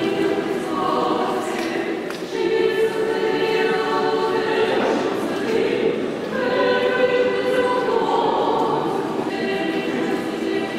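Church choir singing a Paschal hymn a cappella, in long held phrases, during the Orthodox Easter service.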